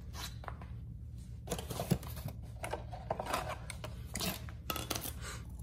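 Faint, scattered clicks and rustles of small parts being handled, over a steady low hum.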